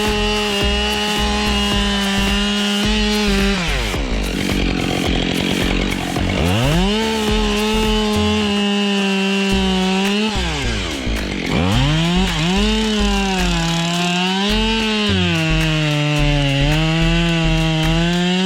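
Two-stroke chainsaw engine at full throttle, twice dropping off toward idle and revving back up. In the last third its pitch dips and swells repeatedly as it labours cutting through wood.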